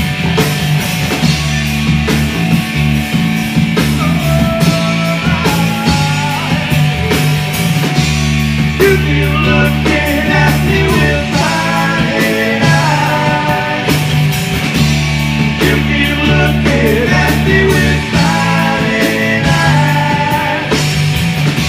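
A rock band playing live: drums, bass guitar and electric guitar, with a lead melody line of held and bending notes over them, in an instrumental passage.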